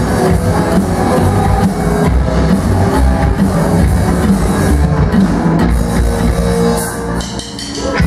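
Live surf rock band playing: electric guitar over upright double bass and drum kit, easing off briefly near the end.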